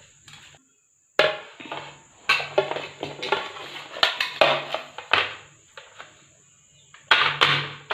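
Steel cake tin upside down on a plastic plate, knocked and tapped repeatedly to release the cake, giving a string of sharp, ringing metallic clatters at uneven intervals.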